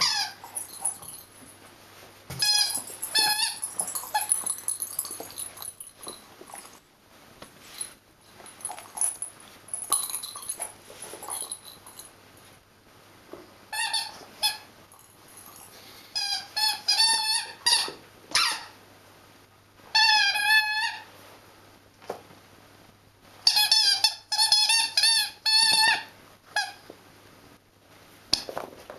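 Rubber squeaky toy ball squeaking again and again as a miniature schnauzer puppy chews it, in runs of short squeaks with quieter pauses between.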